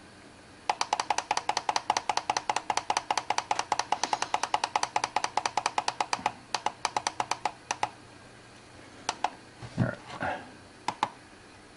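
Visual VibeAlert alarm clock's button held down to step the alarm time: a rapid, even run of short clicking beeps, about eight a second, lasting some seven seconds and slowing just before it stops. A few single clicks and a low thump follow.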